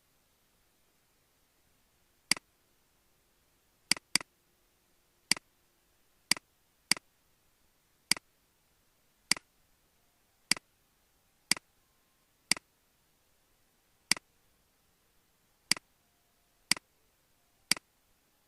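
Computer mouse clicks, about fifteen single clicks spaced irregularly around a second apart, with one quick double click a few seconds in.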